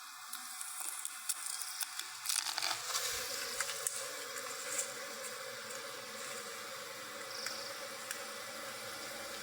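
Honeybees buzzing steadily around a wild hive, with scattered clicks in the first few seconds.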